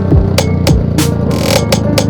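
Electronic background music with a steady beat: a kick drum about every 0.6 seconds, with sharp snare and hi-hat hits between.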